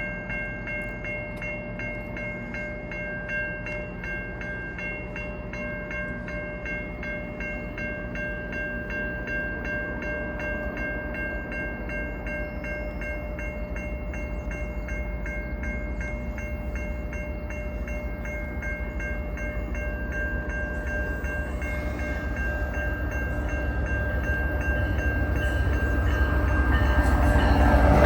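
Level-crossing warning bell ringing steadily while a GO Transit commuter train approaches, its low rumble growing louder toward the end.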